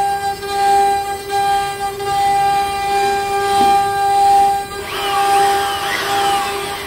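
CNC wood router spindle whining steadily while its cutter mills grooves into a wooden panel, the loudness wavering as it cuts. About five seconds in, brief sweeping whines rise and fall over it.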